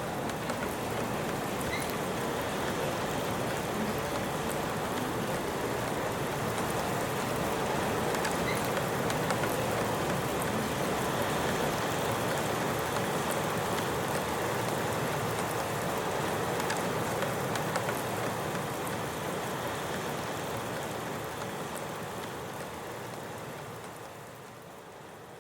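Rain falling steadily, a constant rush with scattered faint drop ticks, fading down near the end.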